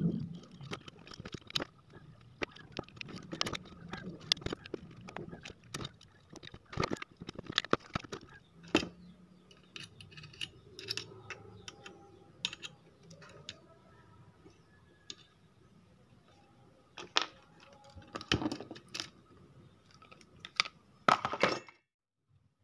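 Pliers and a side cutter clicking, tapping and clattering against a transistor amplifier circuit board and its components, in irregular sharp clicks, with a denser run of clicks near the end.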